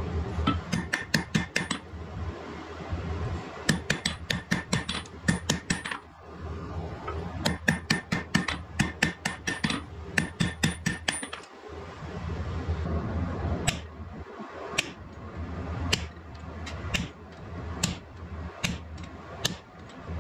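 Hand hammer striking a red-hot bloomery steel bar on an anvil: sharp metallic blows in quick runs of about eight to ten, with short pauses between, turning into slower single blows in the last third. A steady low hum runs underneath.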